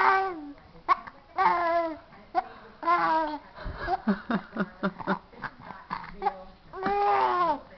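Young baby cooing and babbling: several drawn-out high-pitched coos, with a run of short quick sounds in the middle.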